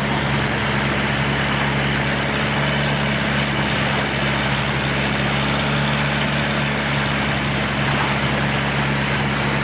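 Motorboat engine running steadily at constant speed: a continuous low drone under a steady rushing hiss.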